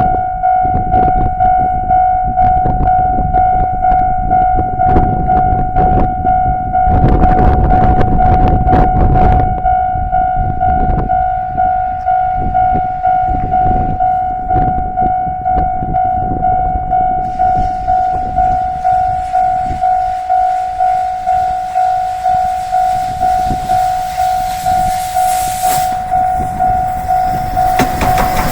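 Japanese railway level-crossing warning alarm dinging steadily, about one and a half dings a second. Under it, an approaching train's rumble swells loudest about a quarter of the way in, and a hiss builds in the second half as the train nears the crossing.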